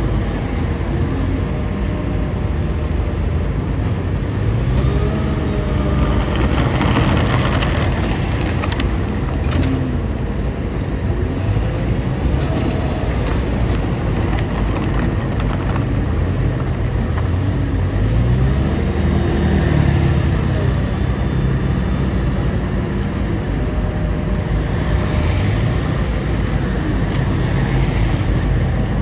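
Bulldozer's diesel engine running continuously, its pitch rising and falling several times as it revs.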